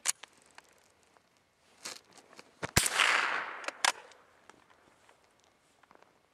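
A single gunshot about three seconds in, a sharp crack followed by a trailing echo that dies away over about a second. There are short sharp clicks just before and just after it.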